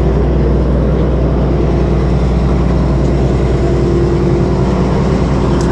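Large engine running steadily, a low even hum with no change in speed.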